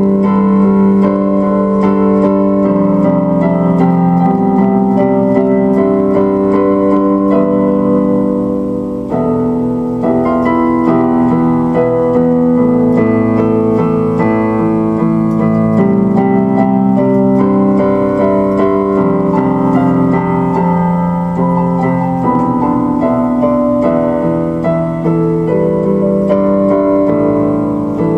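Instrumental keyboard music: held electric-piano chords under a moving melody.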